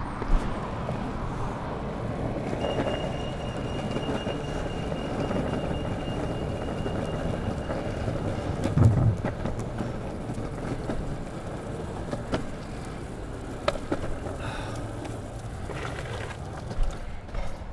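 Longboard wheels rolling over a paved cycle path: a steady rumble with sharp clicks where the wheels cross cracks and joints, and one loud thump about nine seconds in.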